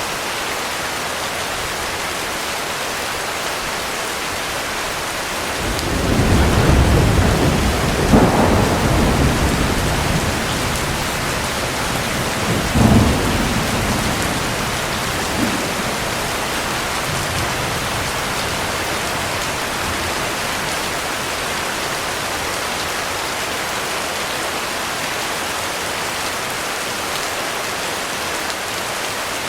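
Heavy rain falling steadily, with a roll of thunder that builds about six seconds in. It cracks loudest twice, a few seconds apart, then rumbles away over several seconds.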